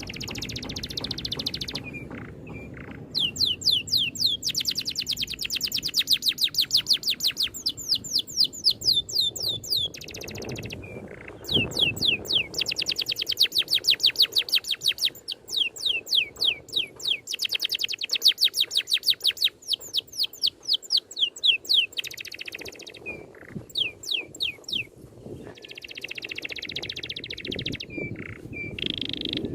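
A songbird singing long, rapid runs of sharp down-slurred notes, several a second, each run lasting several seconds, broken by shorter, lower chattering phrases. This is a masteran tutor recording of rolling song with rapid-fire 'tembakan' phrases, played to teach caged songbirds.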